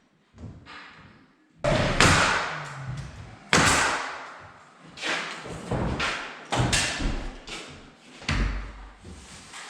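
Irregular series of loud thuds and knocks from work hanging interior doors, each hit followed by a short echo in the bare room.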